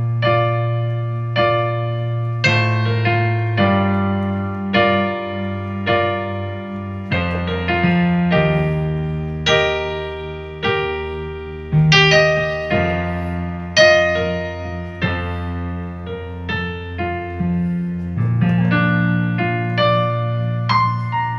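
Sampled Yamaha S90 ES acoustic piano played from a MIDI keyboard and heard through a Tronsmart Element Force+ portable Bluetooth speaker. Slow chords and bass notes are struck about once a second, each ringing on under the next.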